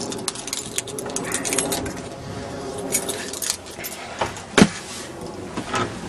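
Keys jangling and clinking, with scattered handling clicks, as a person climbs into a pickup's cab to start it; one loud sharp thump about four and a half seconds in.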